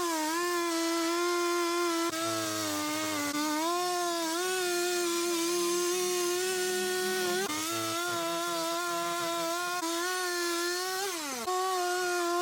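Carving chainsaw running at high revs as it cuts wood, its pitch wavering with the load. Near the end the pitch drops sharply once, then picks back up.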